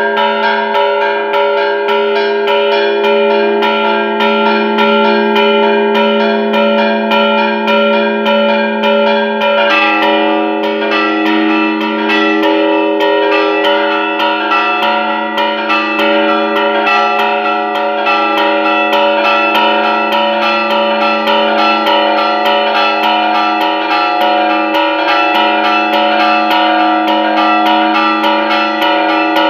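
Hand-rung church bells in a rapid festive repique, fast strokes on several bells overlapping and ringing on. About ten seconds in, the mix of bells changes abruptly.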